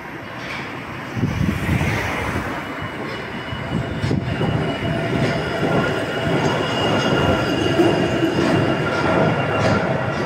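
Wuppertal Schwebebahn suspension railway car passing overhead: the rumble of its wheels on the single overhead rail, with steady high squealing tones. It grows louder from about a second in, is loudest around eight seconds in, then begins to fade.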